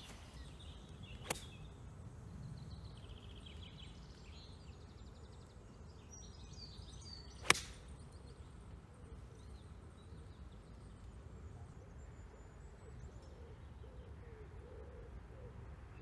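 A single crisp click of a golf club striking the ball about seven and a half seconds in, the loudest sound, with a fainter click about a second in. Small birds chirp in the background, and a low cooing bird call comes in during the second half.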